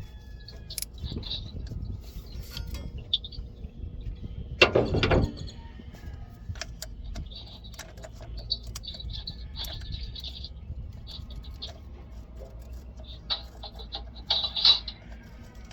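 Hand tools on a backhoe starter's mounting bolts: scattered metal clicks and clinks of a socket wrench, with a louder clatter about five seconds in.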